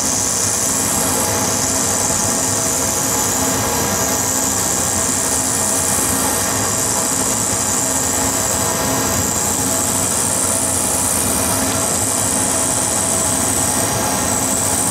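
CNC milling machine's spindle running steadily as a quarter-inch square end mill cuts a graphite electrode in a spiral, with a dust-extraction vacuum hissing alongside.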